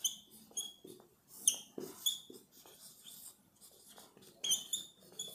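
Writing on a board, the tip squeaking in short, high chirps, about nine of them in irregular strokes, with one longer squeak falling in pitch about a second and a half in. Between the squeaks come faint scrapes and taps of the writing.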